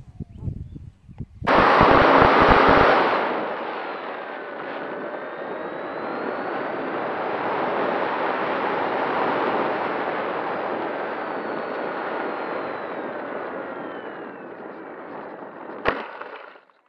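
Wind rush and motor and propeller whine picked up by a camera riding on a homemade foam RC plane in flight. It comes in suddenly loud, eases after a couple of seconds into a steady rush with a faint whine gliding up and down, and a sharp knock near the end marks the touchdown on grass. Before that, about a second and a half of low wind buffeting.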